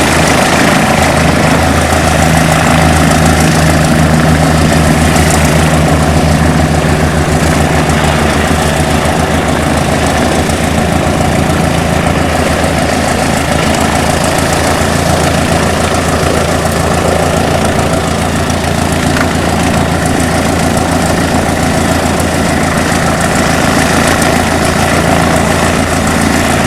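Cessna 152's piston engine and propeller running steadily at idle, loud and unchanging.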